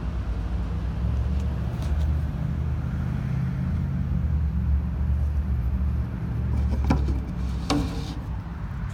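A steady low rumble, strongest in the middle, with two short sharp clicks about seven seconds in and shortly after.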